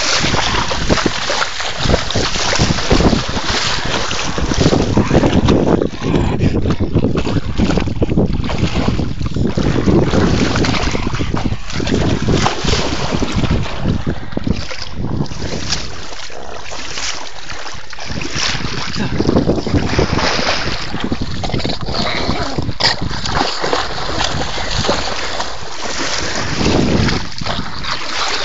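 River water splashing and sloshing close to a cell phone microphone, with wind buffeting the mic. The noise runs on loud and irregular, with many short splashy surges.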